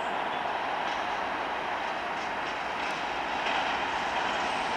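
Irish Rail 201 class diesel locomotive, an EMD JT42HCW with a two-stroke EMD 710 engine, running steadily as it approaches hauling empty four-wheeled cement wagons. The sound grows a little louder about three and a half seconds in.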